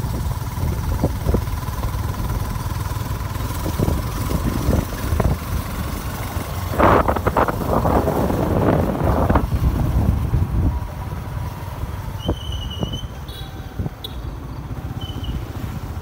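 Motorbike engine running on the move, with wind buffeting the microphone and a louder gusty stretch from about seven to nine and a half seconds in. A faint steady whine runs for the first eleven seconds, and a few short high chirps come near the end.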